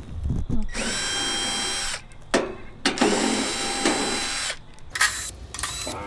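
Cordless drill-driver working screws in an air-conditioner condenser's sheet-metal cabinet. Its motor whine rises as it spins up and then holds steady, in two runs of a second or two each, followed by a few short bursts near the end.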